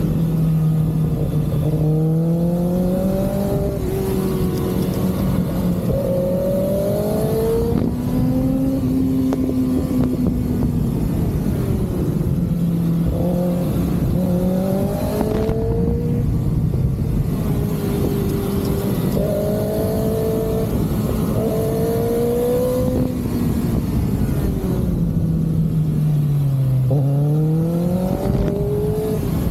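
Kawasaki ZX-6R 636 motorcycle's inline-four engine running, its pitch rising and falling again and again in slow sweeps of a second or two.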